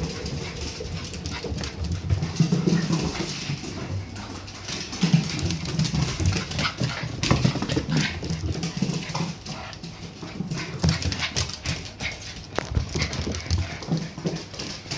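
Two Shiba Inu puppies play-fighting: low growling and whining in short, uneven bouts, mixed with scuffling and the quick taps and knocks of paws and claws on the floor.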